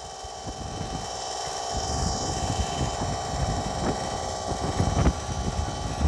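Steady electric hum of a running bilge pump circulating water, under uneven low rumbling gusts of wind on the microphone that grow stronger about half a second in and peak near the five-second mark.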